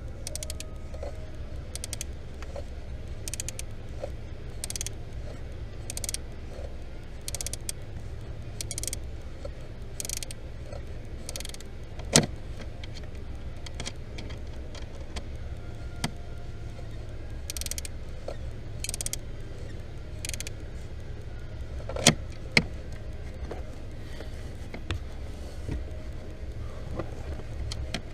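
Repeated clicking with a few louder knocks from behind a Ford Fiesta's dashboard, over a steady low rumble: the knocking of a failing heater servo (blend-door actuator).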